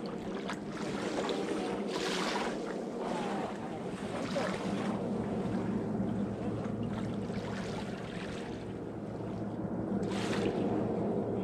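Small waves washing onto a sandy shore, a swell of wash every few seconds over a steady low hum.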